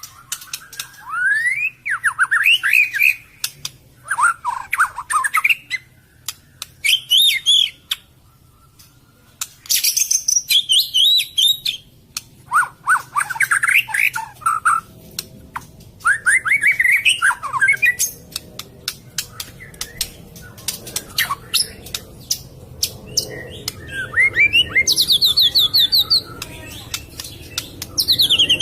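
White-rumped shama (murai batu) singing: repeated phrases of quick rising and sweeping whistles, broken by many sharp clicks, with a brief pause in the middle and a fast high rattling trill near the end.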